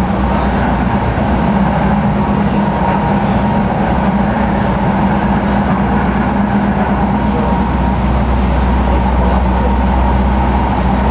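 Tram running steadily along the track: a constant rumble of wheels on rail with a steady low hum and a higher whine over it.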